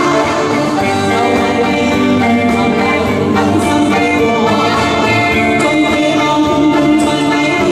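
Live band music: clarinet and saxophone carrying the melody over electric bass and keyboard, with singing.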